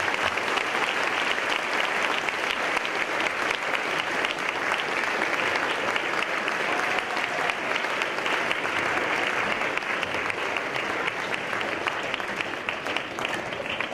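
Audience applauding: many hands clapping in a dense, steady, sustained round of applause.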